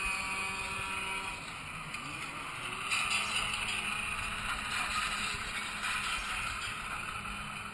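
Rushing water and the steady mechanical hum of a river-rapids raft ride, with the water noise swelling about three seconds in.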